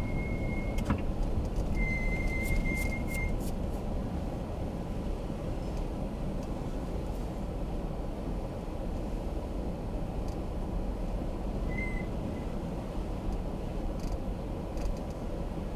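Steady road and engine rumble heard inside a car driving slowly on snow-covered roads, with a couple of short high-pitched tones near the start, another about three-quarters of the way through, and a few light clicks.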